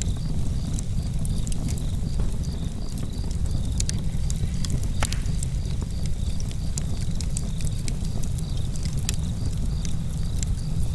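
Outdoor campfire crackling, with frequent sharp pops and snaps over a low steady rumble of flames and breeze. Crickets chirp in a steady, even rhythm behind it.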